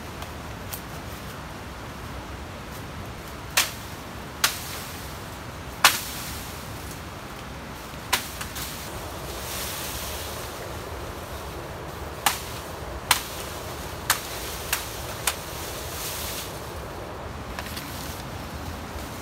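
Dry bamboo snapping and cracking in about nine sharp, irregular cracks, over a steady hiss.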